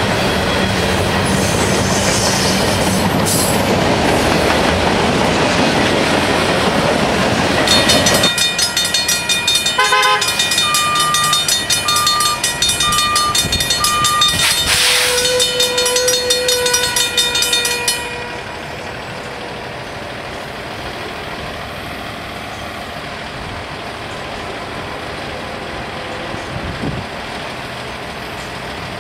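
Freight train flatcars rolling past, a steady clatter of wheels on rail. About eight seconds in this gives way to a grade-crossing bell ringing in a fast, even rhythm, which stops abruptly about ten seconds later and leaves a quieter steady background.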